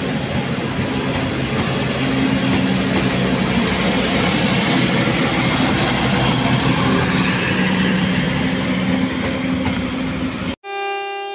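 Passenger train passing close by: a steady rumble and rattle of steel wheels on rail, with a low steady drone underneath. It cuts off abruptly about ten and a half seconds in, and a locomotive horn sounds briefly near the end.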